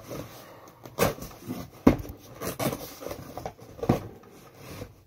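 Cardboard parcel being cut open along its packing tape, with scraping and rustling of the tape and box and a few sharp knocks as the box is handled against the table.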